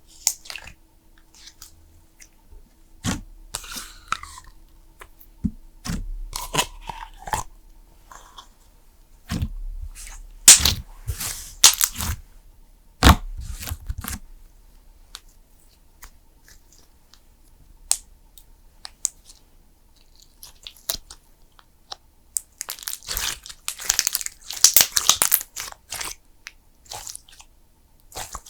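Cream slime being pressed, poked and stretched by hand, giving irregular sticky clicks, crackles and squelches that come in clusters with short pauses between them.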